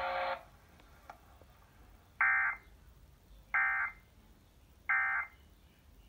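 Emergency Alert System end-of-message data bursts played through a TV speaker: three identical short, shrill digital bursts about 1.3 s apart, marking the close of the alert. A steady electronic tone cuts off just after the start.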